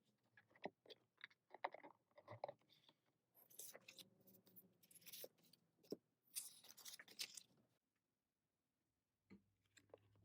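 Faint rustling, crinkling and light clicks of paper inserts, photo cards and plastic album packaging being handled, with two longer crinkly stretches about a third and two thirds of the way through.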